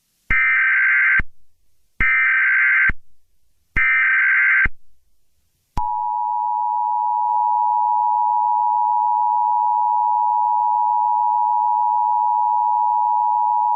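Emergency Alert System tones: three roughly one-second bursts of SAME header data, then the steady two-tone EAS attention signal held for about eight seconds, marking the start of a new alert.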